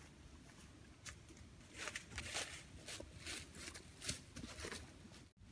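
Footsteps in dry fallen leaves, a run of irregular crunching steps starting about a second in.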